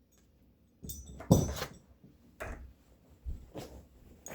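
Handling noises: a cluster of knocks and scuffs about a second in, the loudest just after, then a few separate sharp clicks.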